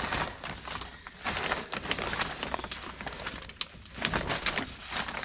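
Irregular rustling, scraping and small knocks of a person crawling and shifting through a crawl space.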